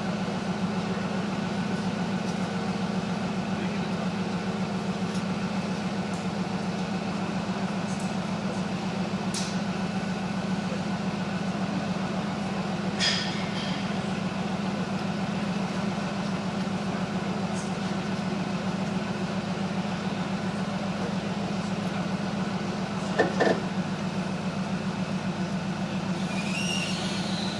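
An engine runs steadily, a constant low drone, with a couple of short knocks about halfway through and again later.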